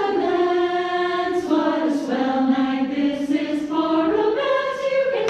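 Choir singing in long, held notes, the voices changing pitch together every second or so.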